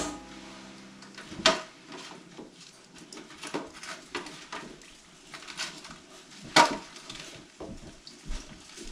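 Scattered light taps and clicks as milk-soaked cookies are laid in a disposable aluminum foil pan, with two sharper knocks about a second and a half and six and a half seconds in.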